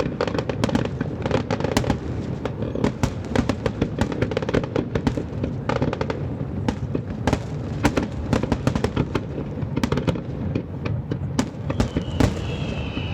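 Fireworks display: a dense, continuous run of bangs and crackles from aerial shells bursting. Near the end, a high whistle glides slowly down in pitch.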